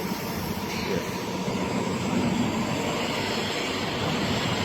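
Steady mechanical rumble and hiss of engines or machinery running in a busy loading yard.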